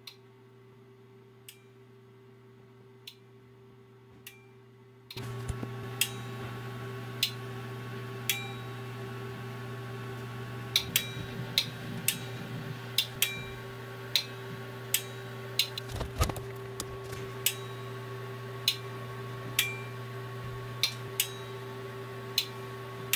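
Plug-in electromechanical relays switching the spindle's forward/reverse commands, clicking on and off with sharp single clicks, at first faint about every second and a half, then louder and roughly once a second over a steady low electrical hum that comes in about five seconds in.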